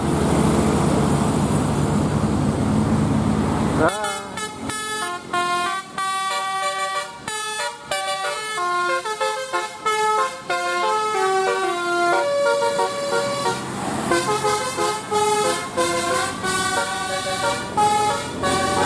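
Bus engine noise for about four seconds, then a multi-tone telolet air horn playing a tune of quick stepped notes.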